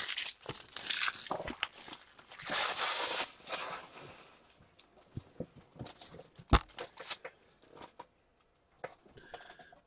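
Trading card packs and cards being handled: crinkling and rustling of pack wrappers and cards for the first few seconds, then scattered light clicks and taps, with one sharp knock about six and a half seconds in.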